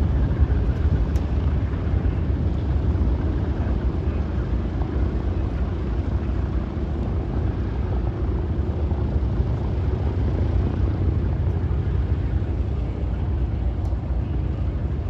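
A B-17G Flying Fortress's four Wright R-1820 Cyclone nine-cylinder radial engines running at taxi power: a steady deep propeller drone that eases a little about halfway through as the bomber taxis away.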